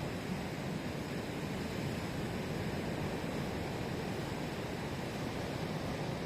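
Sea surf washing steadily, an even rushing noise with no single wave break standing out.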